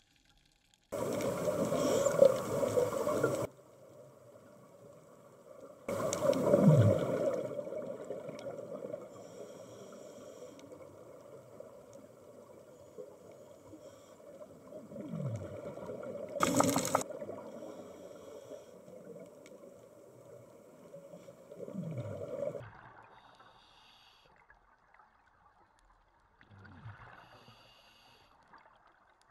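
Scuba breathing recorded underwater: loud gushes of exhaled bubbles from a regulator at intervals, the longest near the start, over a steady underwater drone, with a few short falling tones between them.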